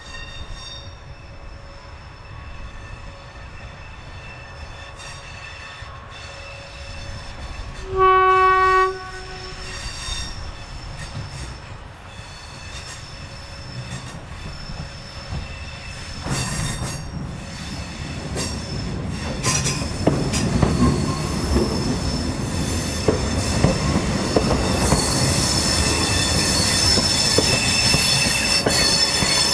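Hydrogen fuel-cell train, a converted Class 314 electric multiple unit (614 209), sounds one horn blast of about a second, about eight seconds in. It then approaches and runs close past on a curve, its wheels squealing on the curved track and the noise swelling to its loudest near the end.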